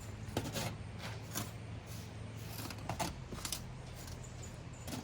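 Black beans being spooned into an aluminium foil packet: a handful of short scrapes and clicks, spread out and irregular, over a faint steady low hum.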